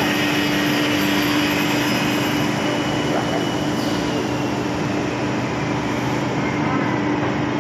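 Steady drone of plywood mill machinery around a hot press: a constant hum at one pitch over an even wash of machine noise.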